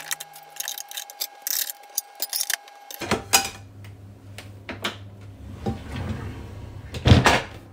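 Plastic storage baskets and kitchen utensils clicking and rattling as they are handled in a pull-out kitchen drawer, then the drawer sliding shut with a thud near the end, the loudest sound.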